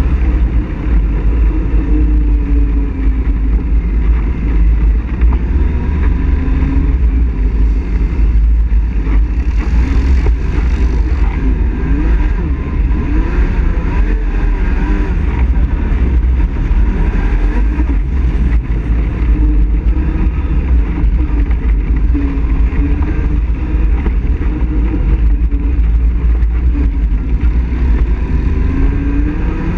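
ATV engine running along a dirt trail, its pitch rising and falling as the throttle changes, over a constant deep rumble.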